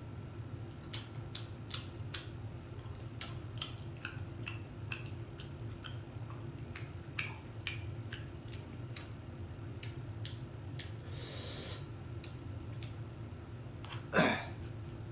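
A person eating close to the microphone: scattered soft clicks and smacks of chewing and utensils, a short hiss about two-thirds of the way in, and one brief louder mouth sound near the end, over a steady low hum.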